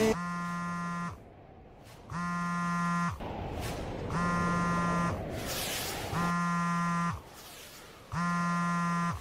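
Mobile phone ringing with an incoming call as a buzz: five steady one-second buzzes, about two seconds apart.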